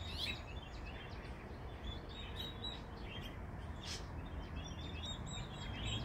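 Small birds chirping: many short, high chirps come in scattered runs, over steady low background noise.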